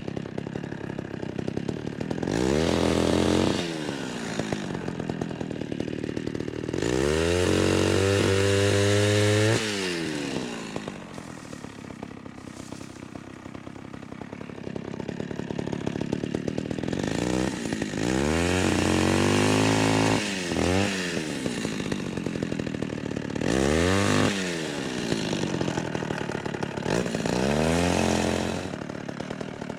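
Homelite Super XL two-stroke chainsaw idling and revving up five times, held at full speed for about three seconds twice and dropping back to idle between each.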